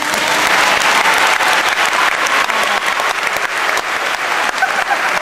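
Audience applauding, a dense, even clapping that starts suddenly as the dance music stops.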